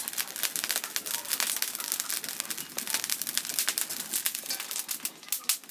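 Dense, irregular crackling of a rooster's feathers and skin burning off as the whole bird is singed over an open wood fire.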